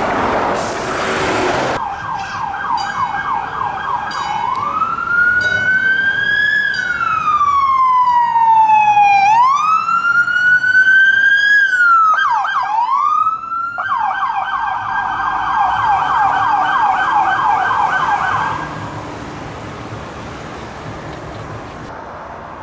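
Police car siren on a Ford Police Interceptor Utility, cycling through its tones: a rapid yelp, then a slow rising and falling wail, a few quick dips, and the rapid yelp again. The siren stops near the end, leaving road noise.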